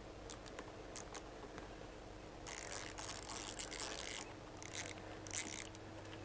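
Faint scraping and rubbing of a hand driver with a T10 Torx bit backing a tiny screw out from under a motorcycle's clutch-lever housing. The scraping is densest from about two and a half to four seconds in, with a couple of short scrapes after.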